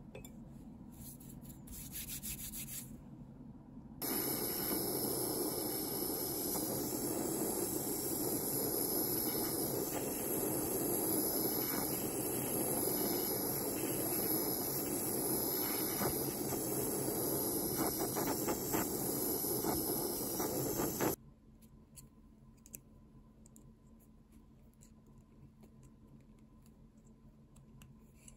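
A few faint file strokes on the brass ring, then about four seconds in a gas torch flame hisses loudly and steadily for some seventeen seconds while it anneals the brass stock, cutting off suddenly. Faint small handling sounds follow.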